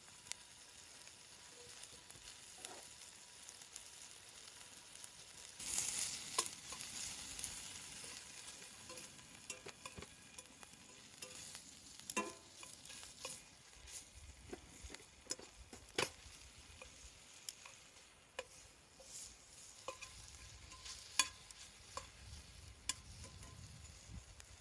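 Food sizzling as it fries, a steady hiss that swells about six seconds in, with scattered sharp clicks and taps throughout.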